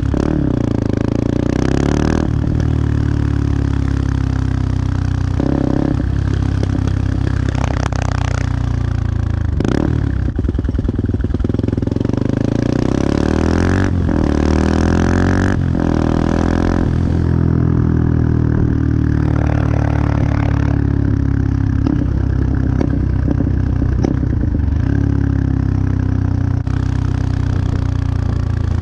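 Benelli TNT 125's single-cylinder four-stroke engine running and being revved over and over: quick throttle blips that rise and fall back, a dozen or so in all, between steadier running.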